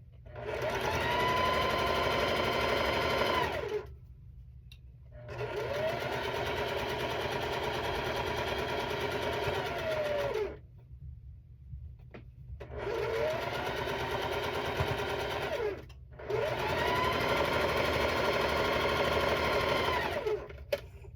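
Electric sewing machine stitching a quilt seam in four runs with short pauses between, the motor whine rising in pitch as it speeds up and falling as it slows at each stop.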